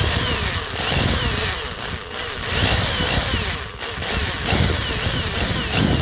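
Electric drill running with its bit boring into the rivet post of a diecast toy car's base, metal grinding against metal. The motor's whine rises and falls several times.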